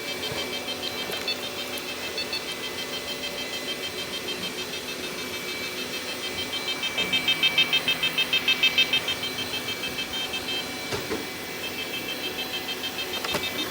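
Robot vacuum running as it cleans, a steady motor hum with a high, rhythmic pulsing of about three beats a second that swells louder for a couple of seconds around the middle.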